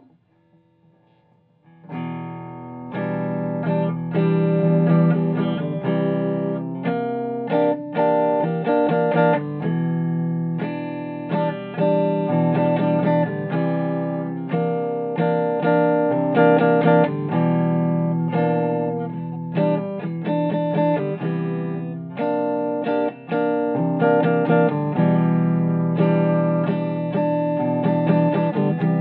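Agile AS-1000 electric guitar on its rhythm pickup, volume and tone fully up, played through a 1965 Ampeg amplifier: picked notes and chords of a song riff, starting about two seconds in.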